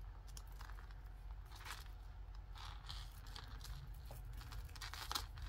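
Faint small clicks and rustles of a fine gold-tone chain necklace being worked between the fingers to undo a knot in it.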